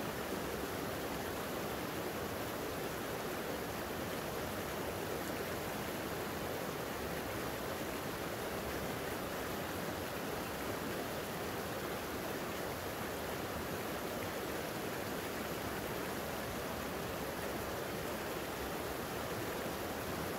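A creek's water flowing in a steady, unbroken rush.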